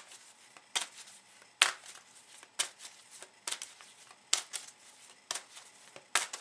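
A deck of cards being shuffled by hand, each stroke giving a crisp slap of cards, about once a second.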